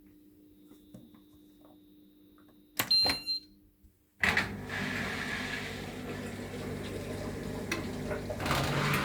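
Washing machine starting its programme: a click and a short high beep from the control panel, then about a second later water suddenly begins rushing steadily through the machine.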